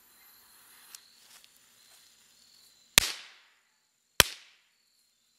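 Two Duck firecrackers set in a pumpkin going off, two sharp bangs about a second apart. They leave the shell whole, and the speaker thinks the pressure is venting out the front and back of the crackers.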